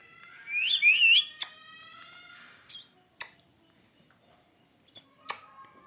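Pet parrot giving a short, high warbling whistle about half a second in, trailing off into a fainter held note. A few sharp clicks are scattered through, with a quiet stretch near the end.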